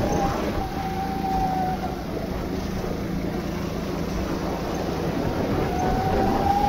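Go-kart engine running at speed on a wet track, over a steady rushing noise, with a faint whine heard in the first two seconds and again near the end.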